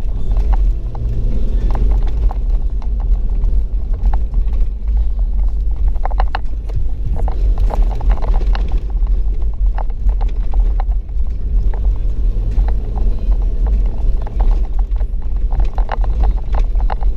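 Toyota Land Cruiser Prado 120 driving along a rutted sand track, heard from inside the cabin: a steady low rumble with frequent short knocks and rattles as it goes over the uneven ground.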